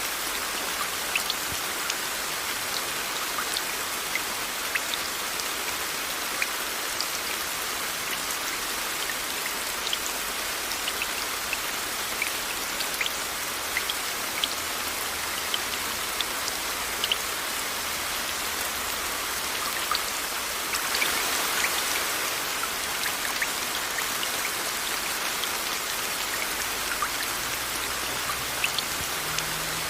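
Steady rain mixed with white noise: an even hiss with many individual raindrops ticking close by. About two-thirds of the way through, the hiss swells louder for a second or so.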